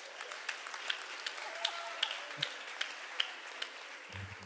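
Audience applauding: a soft wash of clapping with scattered sharper individual claps, easing off toward the end.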